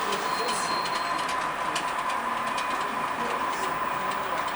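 Model train running on a layout: a steady whine with scattered small clicks of the wheels on the track.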